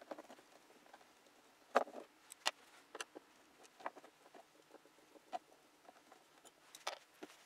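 Faint, scattered clicks and small scrapes of a Phillips screwdriver backing out the hinge screws of a Honda Civic's center console armrest, the sharpest click about two seconds in.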